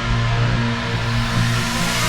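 Electronic background music with a steady bass line.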